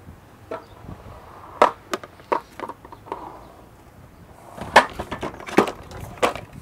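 Knocks and clacks of a Concept2 indoor rower's monorail being lifted and locked back onto its front leg and flywheel frame: a scattered series of sharp strikes, some with a short ring, the loudest about one and a half seconds in and again near five seconds.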